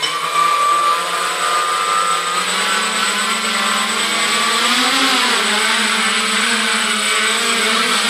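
Quadcopter's electric motors and propellers spinning up and running as a steady whine, rising and wavering in pitch about five seconds in as the drone lifts off, then holding in a hover.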